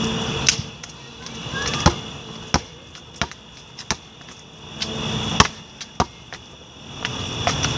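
A basketball bouncing: about eight sharp, irregularly spaced thuds, over a faint steady high hum.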